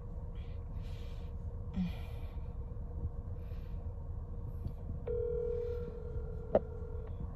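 Outgoing phone call ringing out: a ringback tone on the phone's speaker, one steady two-second ring about five seconds in, over a low steady hum. A short sharp click comes during the ring.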